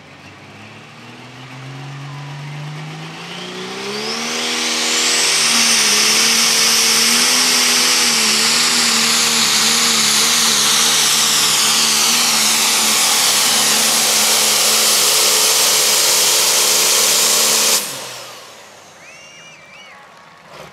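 Turbocharged diesel engine of a John Deere super/pro stock pulling tractor under full load on a pull: it revs up over the first few seconds, then holds at high revs with a loud high turbo whine on top. Near the end the sound cuts off suddenly.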